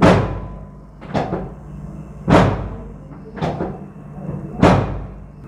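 Five sharp strikes, evenly spaced about one a second, over a low steady hum.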